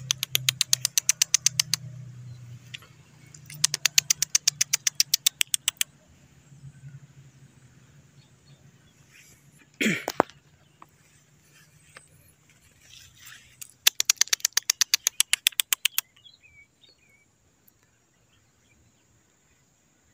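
Three runs of rapid, evenly spaced clicking, about nine clicks a second and each lasting about two seconds, with one short sharp sound about halfway through.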